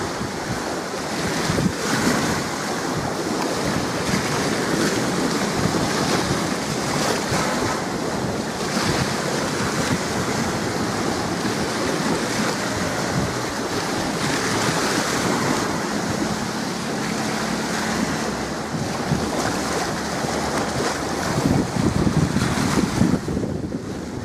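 Strong wind buffeting the camcorder's microphone, over the wash of small choppy waves. It runs steady, then gusts a little harder about three-quarters of the way through.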